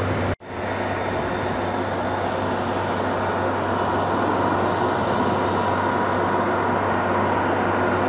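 Milk chiller's refrigeration compressor running steadily, a constant low hum under an even rushing noise, while the unit is being charged with refrigerant gas. The sound cuts out for an instant just under half a second in.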